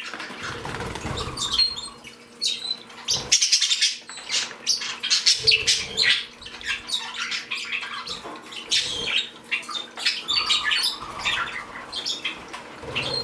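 A mixed flock of small pet birds (Bourke's parakeets, budgies and a canary) chirping, a steady chatter of many short, high chirps, with wings fluttering near the start.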